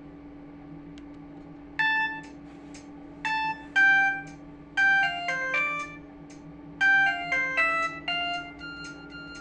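Samsung SGH-E250 mobile phone playing one of its built-in ringtones: a melody of short, bright chiming notes in quick phrases, starting about two seconds in and ending on a longer held note, over a steady low hum.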